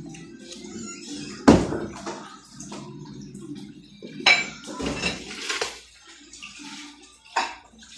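Dishes and cutlery clinking and clattering in a string of sharp knocks, the loudest about a second and a half in, with water running underneath.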